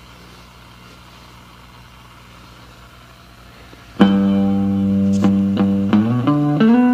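Tweed Champ clone tube amp idling with a steady low hum; about four seconds in, a Fender Telecaster played through it strikes a loud chord that rings, followed by a quick run of several notes.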